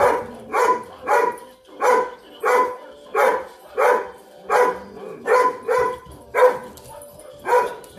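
Weimaraner barking steadily at a plush toy dog Christmas decoration: about eleven short, evenly spaced barks, roughly three every two seconds.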